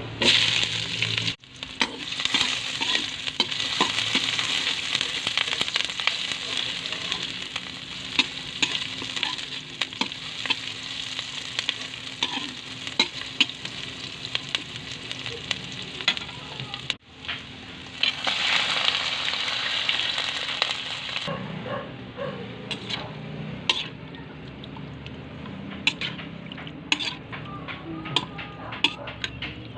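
Squid sizzling as it fries in a pan, stirred with a utensil, with short breaks where the footage is cut. In the last third the sizzle is quieter and frequent sharp clicks of the utensil against the pan stand out.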